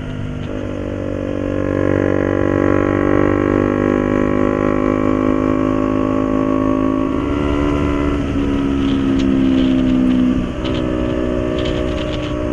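KTM Duke 200's single-cylinder engine running at highway cruising speed. Its note rises gently, then drops about seven seconds in and again about ten seconds in as the throttle eases off.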